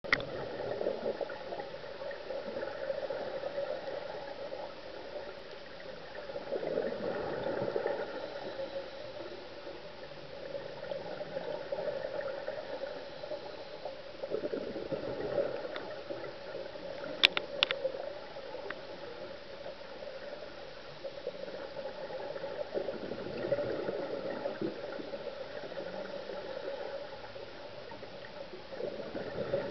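Underwater sound through a camera housing: a scuba diver's regulator bubbles gurgling, swelling and fading every several seconds with each exhaled breath. Two sharp clicks about halfway through.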